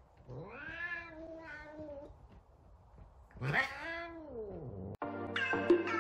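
F2 Savannah cat giving two long, drawn-out meows, the first about two seconds long and the second shorter, each rising then falling in pitch. Electronic music starts abruptly near the end.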